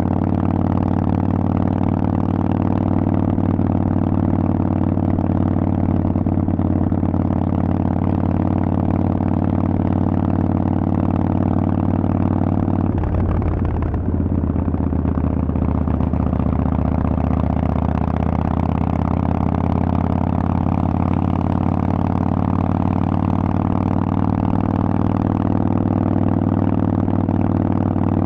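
Harley-Davidson Forty-Eight 1200XL's air-cooled V-twin running steadily through Vance & Hines exhaust pipes. About halfway through, the engine note breaks briefly, then settles again at a slightly different pitch.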